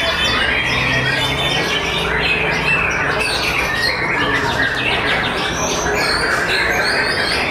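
White-rumped shama singing in a cage, a loud, rapid run of varied whistles and chattering phrases, overlapping with the songs of other caged contest birds.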